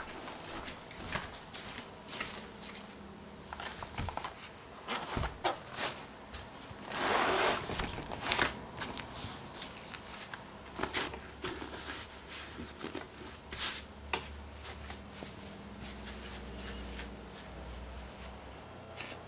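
Fabric laptop sleeve being handled: a string of short rustles and brushing sounds, the longest and loudest about seven to eight and a half seconds in, over a faint steady low hum.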